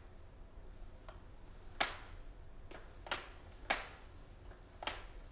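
LEGO pistol's trigger and blowback slide being worked, giving about six sharp plastic clicks at irregular spacing.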